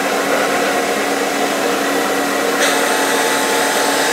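Router cutter on a CNC-converted wood lathe running at high speed and cutting a turning wood spindle on a roughing pass: a steady motor whine over the hiss of wood being cut, which gets harsher about two and a half seconds in.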